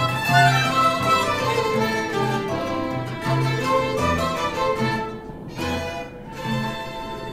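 Background music of bowed strings playing slow sustained notes, growing quieter toward the end.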